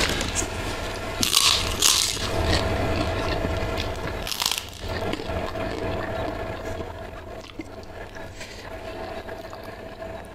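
Close-up mouth sounds of eating: a few sharp crunches as a crisp white kerupuk cracker is bitten and chewed, over continuous chewing that grows quieter in the second half.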